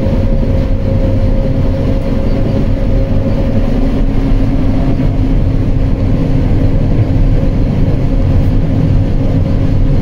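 John Deere S780 combine harvester running while cutting wheat, heard from inside the cab: a steady mechanical drone with a constant hum.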